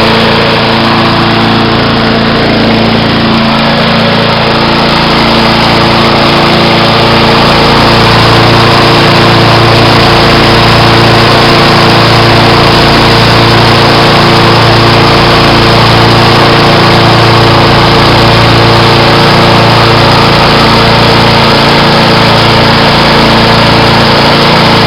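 Suzuki four-stroke engine of a 1987 Toro GTS lawn mower running at a steady speed.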